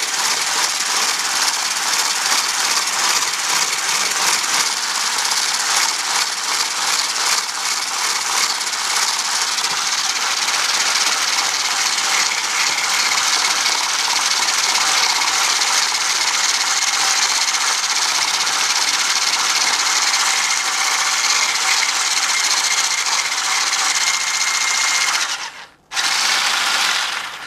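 Electric hand blender with a whisk attachment running steadily at speed, whipping heavy cream in a tall plastic beaker; the cream is nearly whipped. The motor cuts out suddenly near the end, runs again for a moment and then stops.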